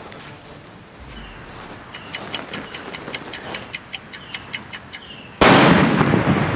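Even clock-like ticking, about five ticks a second, for about three seconds. About five seconds in, a sutli bomb (jute-string firecracker) goes off with a loud bang and sets a bag of petrol alight, and a noisy rush follows and fades.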